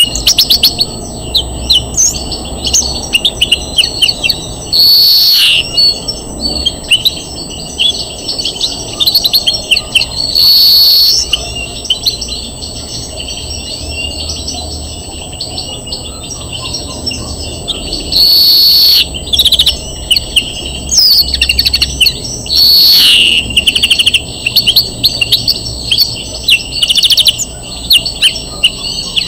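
European greenfinch singing: fast twittering trills and chirps, broken every few seconds by a long, drawn-out wheezing note lasting about a second.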